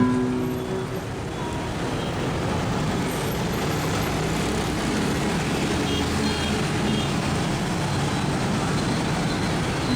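Steady city street traffic noise from a dense stream of motorbikes, an even hum with no single vehicle standing out. A guitar note from background music dies away in the first second.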